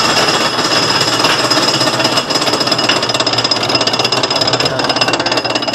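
Kiddie roller coaster train being pulled up its lift hill: a very loud, fast, continuous mechanical rattle from the lift, with a steady high whine running through it.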